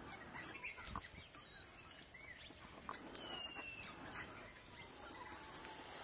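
Faint wild birdsong: scattered short chirps, a thin whistled note about three seconds in, and a soft knock about a second in.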